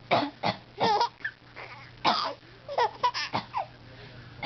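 A baby laughing in a string of short, high-pitched bursts, set off by his mother's coughing.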